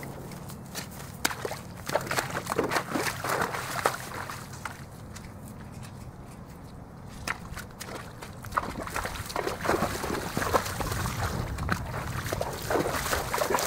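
A horse's hooves splashing through shallow pond water, in irregular bursts of sloshing steps.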